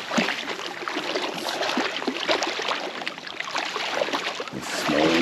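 Lake water splashing and sloshing as a hooked cutthroat trout thrashes at the surface while it is landed, with short crackling splashes throughout. A brief voice sounds near the end.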